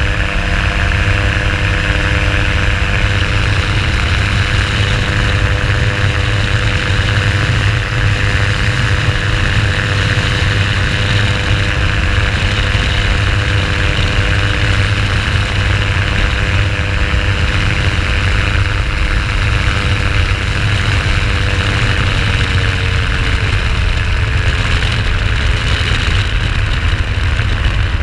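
Flex-wing microlight trike's engine and propeller running steadily in cruise flight, with a rush of wind over an open cockpit. The engine note drops slightly about three-quarters of the way through.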